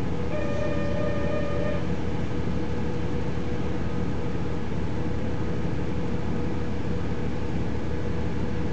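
KiHa 40 diesel railcar's DMH17H engine idling steadily while the train stands at a station, heard from inside the carriage. Near the start a short single tone sounds for about a second and a half.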